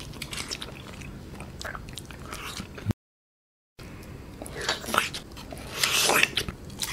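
Close-miked eating sounds of a person biting into and chewing soft, sticky abiu fruit, sucking the flesh off the rind, with small wet clicks and smacks. The sound drops out completely for under a second about three seconds in, and louder wet bites and sucks follow near the end.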